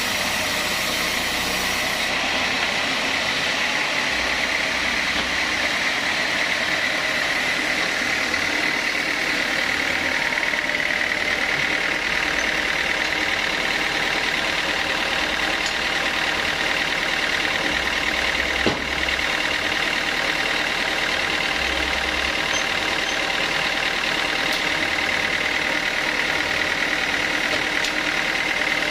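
Sawmill saw machinery running steadily, a constant high whine over a low engine-like hum, with one sharp click about nineteen seconds in.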